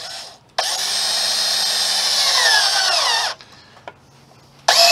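Power drill with a step bit boring a hole about 3/4 inch wide in the van's sheet-metal body. A brief blip of the trigger comes first, then a run of nearly three seconds whose pitch falls as it winds down. The drill starts again near the end.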